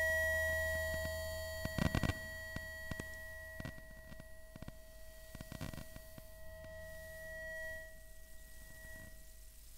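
Electromagnetic emissions of an Asus laptop's electronics picked up by an inductive coil pickup: a steady whine of several pure tones over a low hum, broken by a burst of clicks about two seconds in and scattered crackles after. The tones fade away near the end as the pickup moves.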